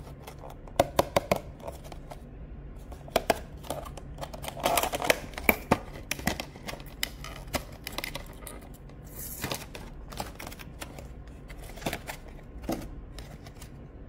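Hands handling an artisan keycap and its packaging: irregular sharp clicks and taps of small hard parts, with a short rustle about five seconds in and a brief scraping swish about nine seconds in.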